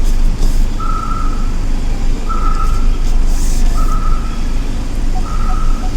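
Vehicle reversing beeper: a single-pitched beep repeating about every one and a half seconds, over a steady low rumble.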